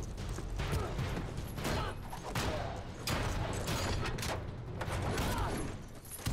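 Movie fight-scene sound: a quick run of hits, thuds and scuffles, with chains and a metal frame clanking, over a steady low rumble.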